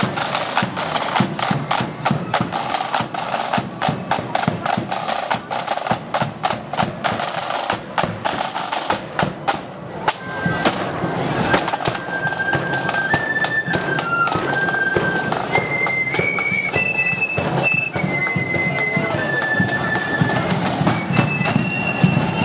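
Marching band drums: snare drums and a bass drum beating a rapid parade rhythm. About ten seconds in, the drumming eases for a moment, then a high melody of held notes joins over it.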